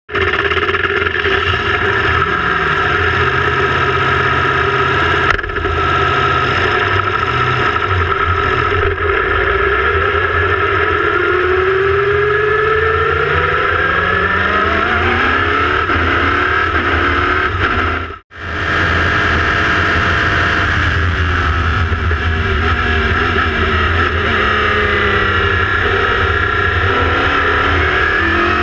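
Onboard sound of an LMPC prototype race car's Chevrolet V8 running hard on track, heard from the open cockpit. The revs rise and fall through the gears, with a sudden brief dropout about two-thirds of the way through.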